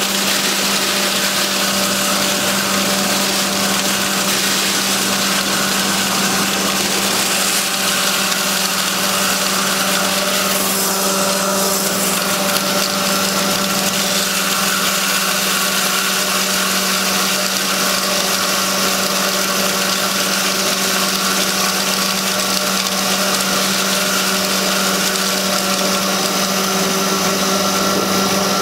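3 HP double-chamber electric grinding mill (flour and spice pulverizer) running under load as it grinds dry grain fed into its hopper: a steady whirring hum that holds one pitch.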